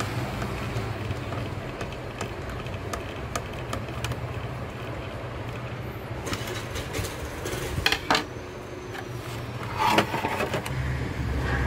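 Plastic UPS casing knocking and clattering as its top cover is swung down and closed, a few sharp knocks in the second half, the loudest near the end. A steady low hum runs underneath.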